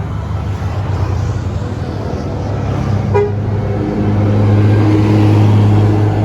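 A bus engine running under load, with a short telolet horn toot about three seconds in, then a held horn tone over the engine that gets louder near the end.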